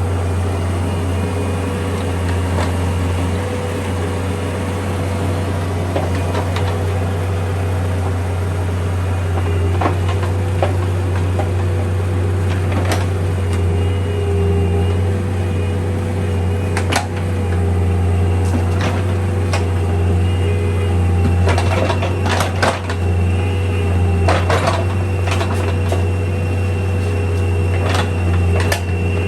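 Bobcat 341D mini excavator's diesel engine running with a steady low drone, with scattered sharp knocks and clicks as the machine works. A thin steady whine comes in about three-quarters of the way through.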